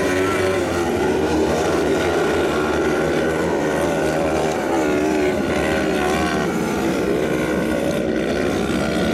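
Several 500 cc kart cross buggy engines racing on a dirt track. The engine notes overlap and keep rising and falling in pitch as the drivers rev up and back off.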